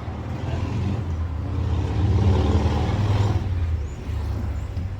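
A low vehicle engine rumble that swells about two seconds in and eases off again after three and a half seconds.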